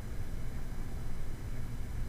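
Steady low rumble with faint hiss: background noise on the microphone, with no other sound.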